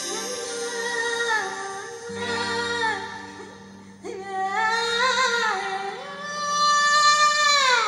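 A song with a singing voice, played back through Chario hi-fi speakers driven by a Technics amplifier and heard in the room. The voice holds long, wavering notes over a steady low accompaniment and slides down near the end.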